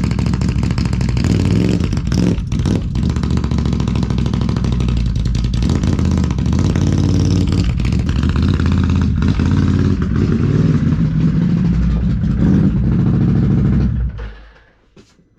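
Can-Am Renegade ATV's V-twin engine running very loud through RJWC dual exhausts, with uneven throttle rises and dips. It cuts off about fourteen seconds in.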